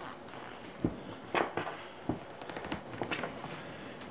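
Braided rope being pulled tight at both ends and handled on a tabletop: a scatter of short rubs and light knocks, the strongest about a second and a half in and again around three seconds.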